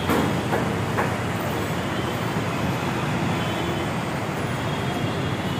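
Steady road-traffic noise, an even wash of sound with no train present, and a couple of faint taps in the first second.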